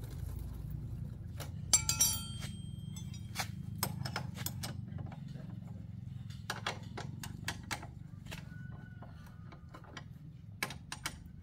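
Hard objects clinking and clicking, with a brief run of ringing clinks about two seconds in that is the loudest part, over a steady low hum.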